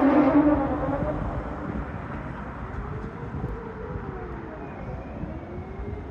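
Whelen WPS 4008 electronic outdoor warning siren at the end of its wail test: the falling tone stops just at the start and the sound dies away in echo. A fainter siren further off keeps wailing, slowly rising and falling, over a low rumble.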